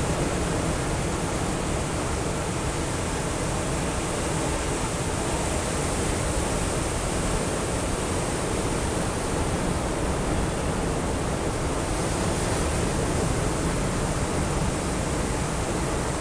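Sea waves breaking and washing on a rocky shore: a steady rushing noise with no separate events.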